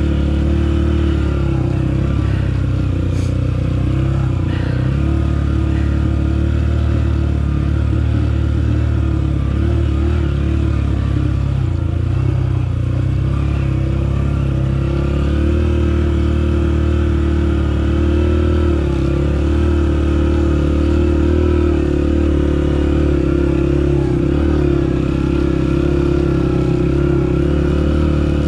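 Off-road motorcycle engine running at fairly steady revs while riding a trail, with small rises and falls in pitch.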